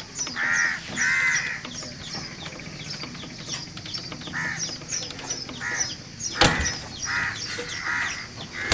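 Crows cawing again and again in short calls, with smaller birds chirping high and fast throughout. A single sharp knock comes about six and a half seconds in.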